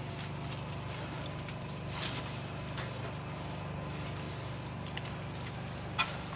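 Faint rustling of branches and leaves being handled, with a few light clicks about two seconds in and one sharper snap near the end, over a steady low hum.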